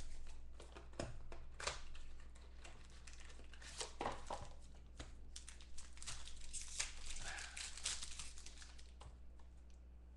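Foil trading-card pack wrappers crinkling and tearing as packs are ripped open by hand: a dense run of sharp crackles that thins out near the end.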